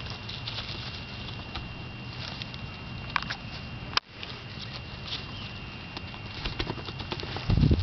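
Holland lop rabbit scrabbling over gravel and dry straw: scattered small crunches and clicks, with a sharper click about three seconds in and a loud low thump near the end.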